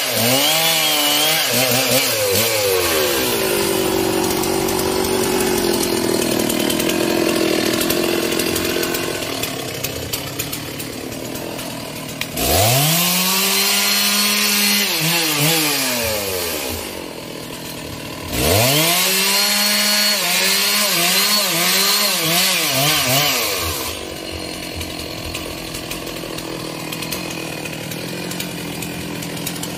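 Stihl MS 660 two-stroke chainsaw cutting through a log at full throttle, dropping to a lower run after about three seconds. Further in it is revved up hard twice for several seconds each, falling back between and near the end.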